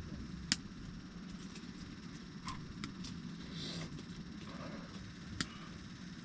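A few sharp clicks and snaps scattered over a steady low rumble, with a brief hissy scrape in the middle.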